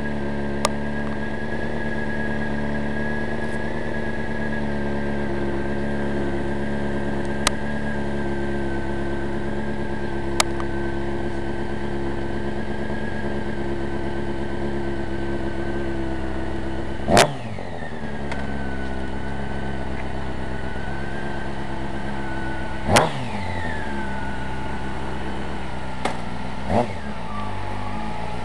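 Sport motorcycle engine idling steadily, the throttle blipped sharply about three times in the second half, each rev dropping quickly back to idle.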